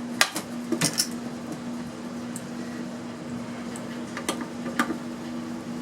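Clinks and clicks of metal hand tools and small parts being handled while an electronic device is taken apart: a few sharp clicks near the start and two more later, over a steady low hum.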